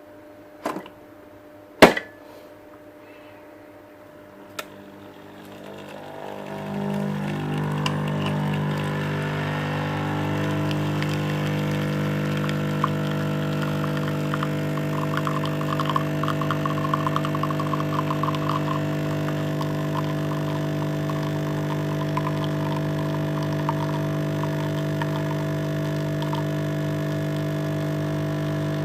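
A few sharp clicks, then a steady mechanical hum that builds up about five seconds in and holds unchanged, with faint crackling in the middle: typical of a Nespresso Essenza Mini's pump running through a brew.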